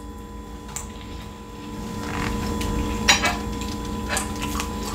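Close-up eating sounds: chewing a mouthful of baked macaroni and cheese, with a few sharp clicks and taps about one, two, three and four seconds in as the fork and the T-bone steak are handled on the plate. A faint steady hum runs underneath.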